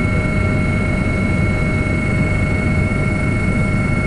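Helicopter running steadily: a loud, even rotor and engine noise with a steady high-pitched whine on top.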